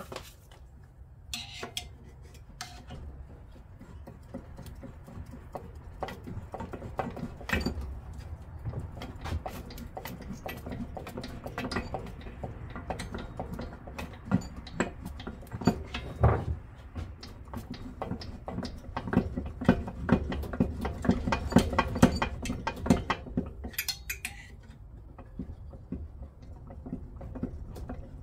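Metal hand tools clinking and tapping on engine parts while working a tight-fitting flywheel off a VW engine: a dense run of small irregular clicks with a few louder knocks, busiest in the middle.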